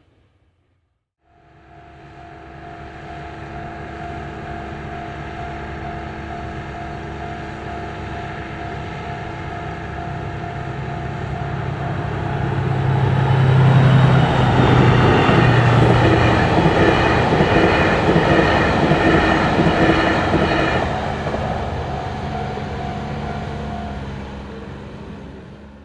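A DF200 diesel-electric locomotive hauling the Seven Stars in Kyushu train approaches, passes close and moves away: engine running and wheels on the rails, building to its loudest about halfway through, then fading. A steady high tone sounds under it until near the end.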